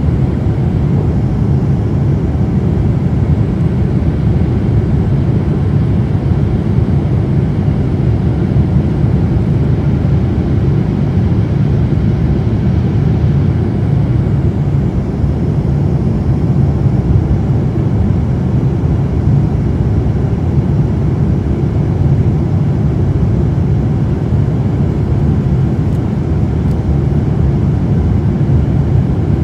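Boeing 747 engines and airflow heard from inside the cabin during the climb after takeoff: a steady, loud, low rumble.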